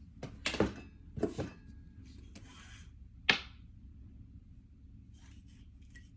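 Knocks and clacks of AR-15 rifle parts being handled on a hard surface: a quick double knock, another pair, then a single sharp clack about three seconds in, the loudest, with faint rustling between.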